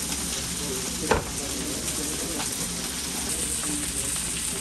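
Food frying and sizzling on a flat iron griddle, steady throughout, with a single sharp knock about a second in.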